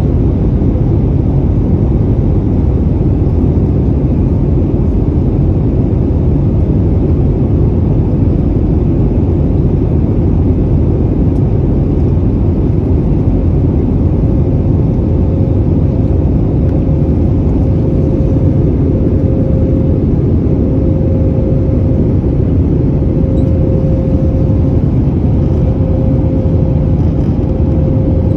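Steady cabin roar of an Airbus A321neo in its climb after takeoff: engine and airflow noise heard from a window seat over the wing. A faint steady tone joins in about halfway through.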